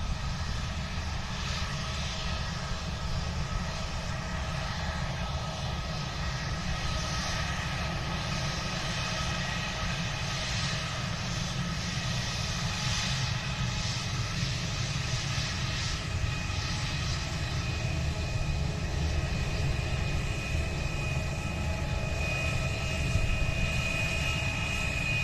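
Airliner jet engines running steadily: a deep rumble with a high whine that grows stronger over the second half.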